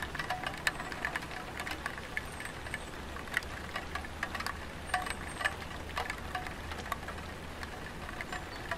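Light rain falling on a tiled roof: irregular drips and taps, some with a short ringing tink, over a steady low rumble.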